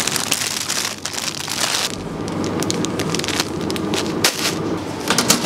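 Thin plastic food packaging crinkling and crackling as it is grabbed off a shelf and handled, over a steady background hum.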